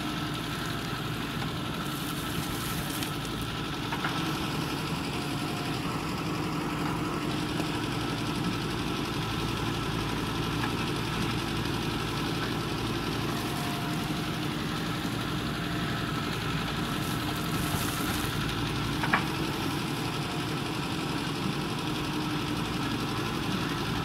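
JCB 3DX backhoe loader's diesel engine running steadily while the backhoe arm digs, with two brief sharp knocks, the louder one about three quarters of the way through.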